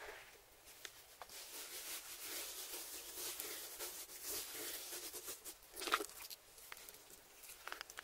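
A hand rubbing and patting a dry spice rub into the surface of a raw tomahawk steak: a soft, wet, hissy rubbing. About six seconds in there is one louder smack of hand on meat.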